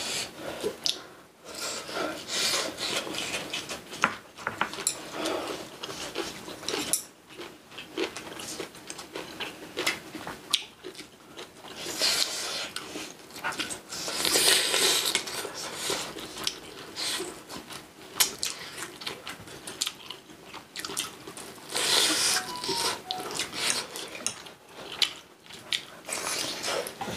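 Close-up eating sounds: chewing of braised pork ribs and aged kimchi, with frequent light clicks of chopsticks and spoons against dishes. There are denser bursts of chewing and utensil noise about halfway through and again a little later.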